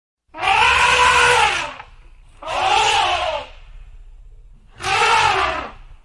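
Elephant trumpeting three times, each loud call lasting about a second and arching up then down in pitch.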